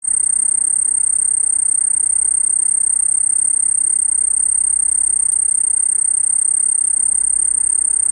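Field cricket singing, rubbing its wings together: one continuous, high-pitched trill that holds steady without a break.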